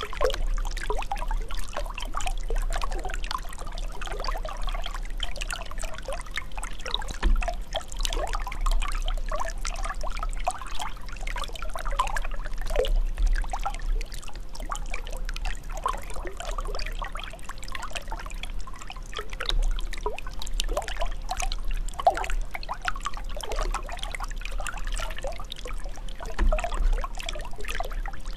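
Running water trickling and bubbling steadily, full of small bubbling blips, over a constant low rumble.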